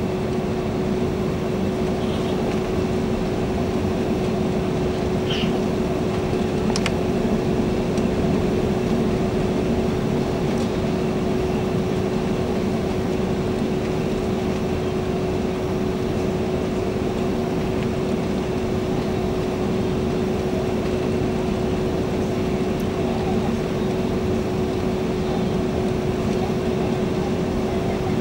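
Steady cabin roar of an Airbus A330-200 on landing approach, its Rolls-Royce Trent 700 engines at approach power, with one steady tone held throughout. A faint click comes about seven seconds in.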